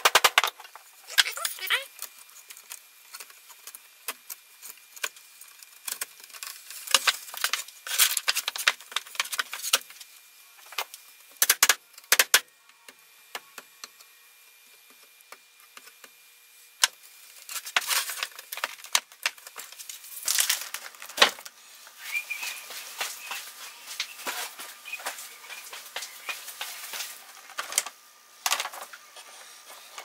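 Wooden dowels clicking and knocking as a small log-cabin wall is fitted together by hand, with irregular sharp taps and short clusters of clatter.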